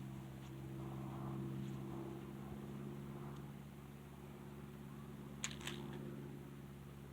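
Faint footsteps of a hiker on a dirt trail, about one a second, over a steady low hum. Two sharp clicks follow one another quickly about five and a half seconds in.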